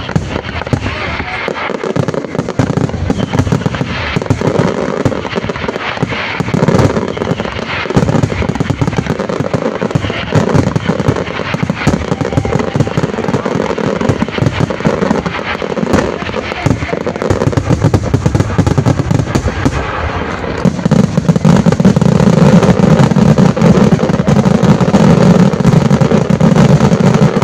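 Fireworks finale: a dense, unbroken barrage of aerial shell bursts and bangs. About twenty seconds in it grows louder and denser as a ground-level salvo fires.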